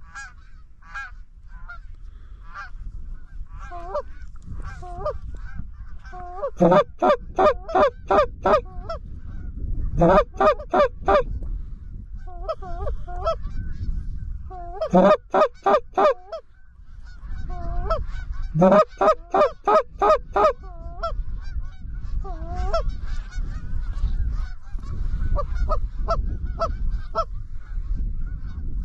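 Canada goose calls blown in fast runs of clucks and honks, four loud rounds of rapidly repeated notes that break from low to high. Fainter honking from a flock of Canada geese carries between the runs, over a low wind rumble.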